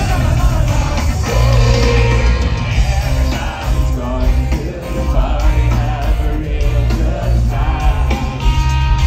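Live rock band playing through a festival sound system: loud electric guitars, heavy bass and drums, with a man singing.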